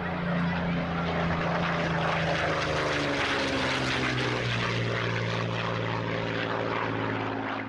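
Propeller aircraft flying past: a steady engine drone whose pitch drops between about three and four and a half seconds in as it goes by.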